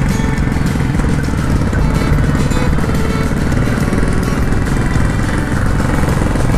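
A motor vehicle driving along a road: steady engine and road noise with a heavy low rumble.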